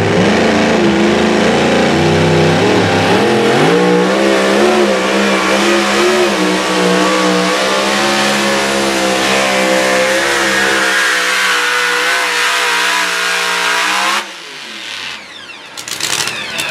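Two-wheel-drive pulling truck's engine running at full throttle through a pull: the pitch climbs about three seconds in and holds high. Near the end it drops off sharply, the pitch falling fast as the engine winds down.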